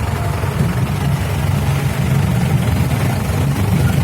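A vehicle's engine running steadily, heard from inside the vehicle as a continuous low drone.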